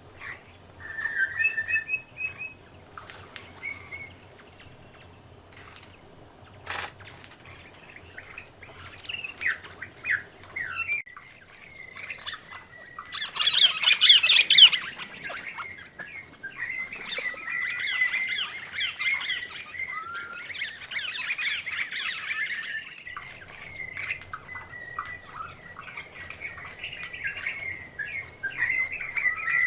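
A mixed flock of honeyeaters and parrots calling at once: scattered chirps and squawks, swelling about halfway through into two spells of dense, loud chattering, then calling on at a lower level.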